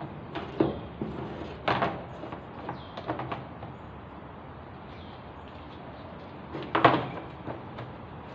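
Washing machine parts knocking and clunking as the drum cover is handled and fitted: a few separate hard knocks, the loudest about seven seconds in.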